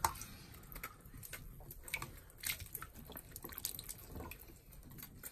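Faint, scattered splashes and drips of shallow bath water in a sink as several hairless rats move about in it and scrabble at the basin's edge.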